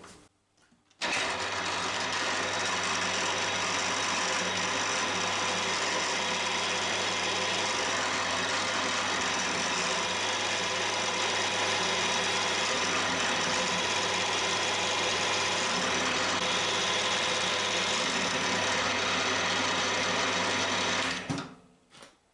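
Cormak ZX 7045 mill running steadily under power, a constant machine hum and rattle. It starts abruptly about a second in and stops near the end.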